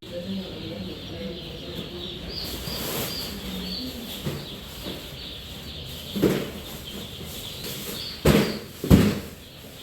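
Three sharp knocks in the second half, the last two close together, over a low background murmur and a few faint high chirps.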